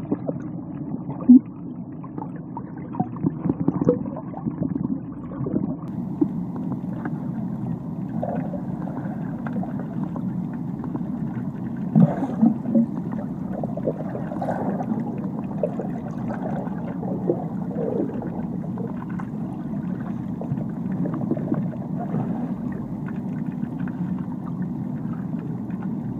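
Muffled underwater sound of pool water heard through a submerged camera: a steady low rush of churning water with scattered bubbling blips and a few louder knocks.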